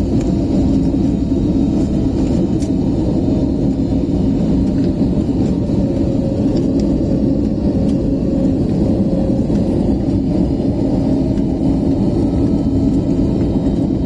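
Airliner cabin noise on the descent to landing: a loud, steady low rumble of engines and airflow with a faint constant hum on top.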